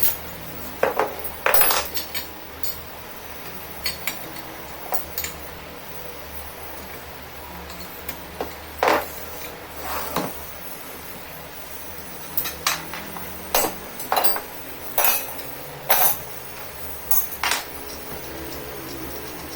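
Scattered metal clinks and knocks from hand tools and metal parts being handled, about a dozen at irregular intervals, some ringing briefly, over a steady low hum.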